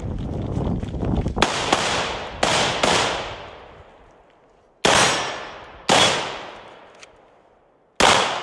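Semi-automatic rifle shots: a quick string of four between about one and a half and three seconds in, then single shots about a second apart and one more near the end, each with a long echoing decay.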